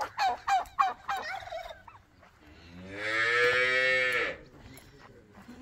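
A turkey gobbling briefly at the start, then a cow lowing in one long moo, about two seconds long, that rises and falls in pitch and is the loudest sound.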